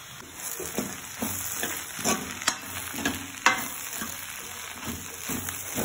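A spoon stirring poha in a metal kadhai, scraping and knocking against the pan irregularly, about twice a second, the loudest knock about three and a half seconds in. Under it a sizzle of the poha frying with its spices starts about half a second in.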